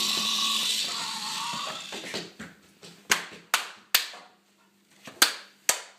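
Small electric motor of a K'nex remote-control motorcycle whirring, dying away about two seconds in. Then come several sharp, separate taps.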